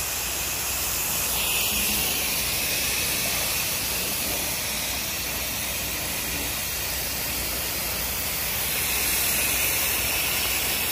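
Steady hiss of water spraying from a soft-wash wand nozzle on an extension pole onto vinyl siding.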